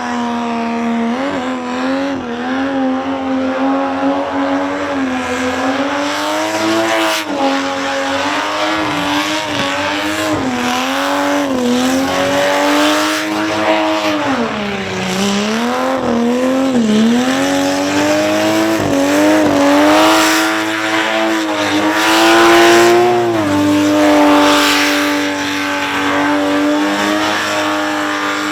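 Supercharged six-cylinder Holden Commodore engine held at high revs through a burnout, its pitch wavering with the throttle, dipping twice around the middle and rising then dropping near the end, over a hiss of spinning tyres.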